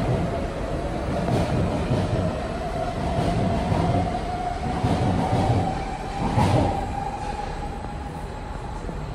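Kawasaki C151B metro train running through the station without stopping and moving away. Its rumble slowly fades, a steady whine dies out near the end, and there is a brief louder clank about six and a half seconds in.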